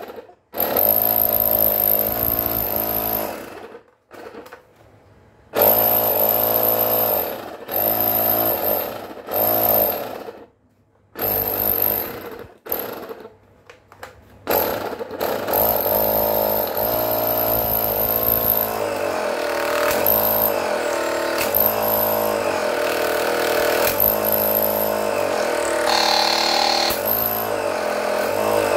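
12-volt portable tyre inflator (electric air pump) running off a battery. It is switched on and off in short bursts several times, then runs steadily, pumping air.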